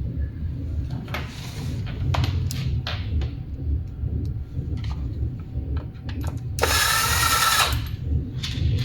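Electric screwdriver running in short bursts, with clicks and knocks of parts being handled in between; the longest and loudest run, about a second, comes near the end.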